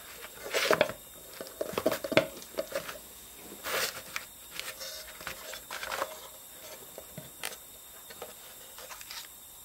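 Handling noises on a wooden tabletop: scattered light clicks, knocks and short rustles as a hand moves and opens a small wooden box of trinkets.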